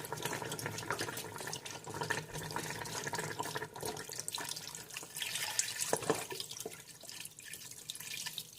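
Chicken broth poured from a carton into a pot, a steady splashing pour that eases off near the end.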